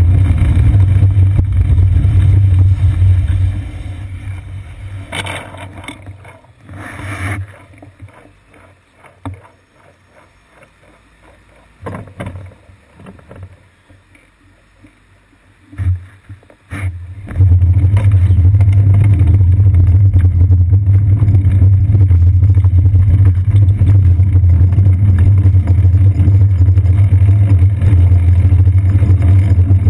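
Loud, steady low rumble of road vibration and wind picked up by a GoPro clamped to a moving bicycle's seat post. It falls away about four seconds in as the bike stops, leaving faint city traffic with a few brief passing sounds. It comes back at full strength a little past halfway as the bike rides on.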